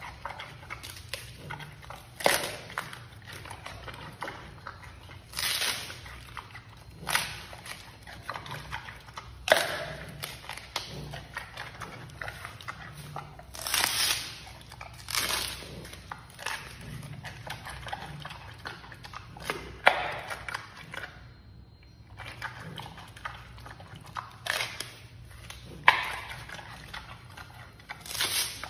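Giant panda biting and chewing bamboo: loud crisp crunches every few seconds, with softer crackling chewing between and a brief pause about three-quarters of the way through.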